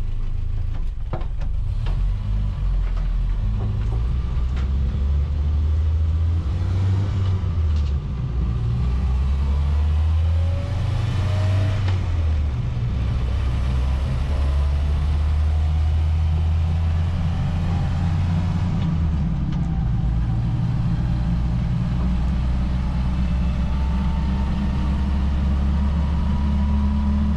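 1970 Series 3 Land Rover on the move, heard from inside the cab: a steady, loud low engine drone with the whine of the old straight-cut gearbox, which rises in pitch as the vehicle picks up speed about ten seconds in.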